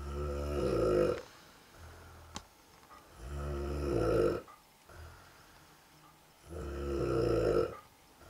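A man snoring: three long snores about three seconds apart, each with a pitched, buzzing tone, with softer breathing between them.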